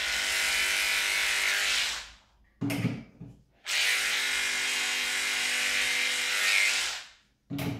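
Electric dog clippers running as they shear a poodle's coat, in two runs of about two and three seconds that stop in between. A short thump falls in the pause and another near the end.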